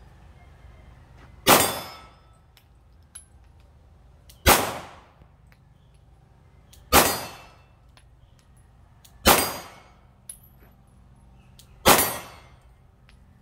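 Five single shots from a 9mm Glock 19 Gen 5 pistol, fired slowly about two to three seconds apart. Each is a sharp crack with a short echoing tail.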